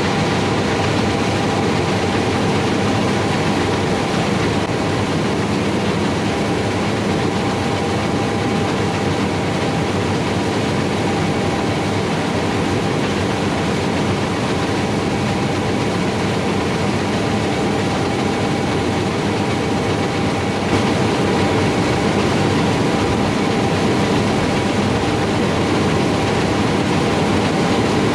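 Combine harvester running steadily while cutting wheat: a loud, even mechanical noise with a few faint steady tones, which gets slightly louder about three-quarters of the way through.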